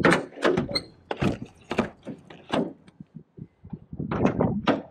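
Jeep Wrangler TJ hood being lowered and shut, with a series of sharp knocks and clacks as it is closed and the rubber hood latches are hooked down, a quick cluster of them near the end.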